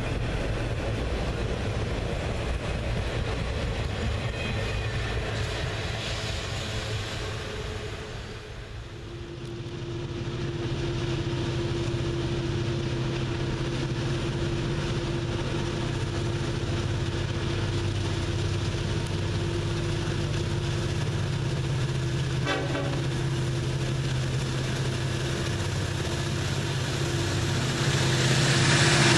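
Autorack freight cars rolling past with a steady rumble. After a cut, Norfolk Southern diesel locomotives run toward and under the viewpoint: a low steady engine drone with one held tone over it, growing louder near the end.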